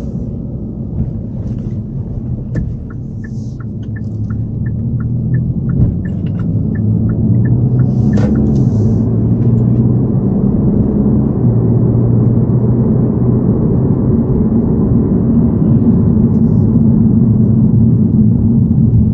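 Car engine and road noise heard from inside the cabin, a steady rumble that grows louder from about six seconds in as the car gathers speed. For about five seconds in the first half, a turn-signal indicator ticks evenly, about two to three clicks a second.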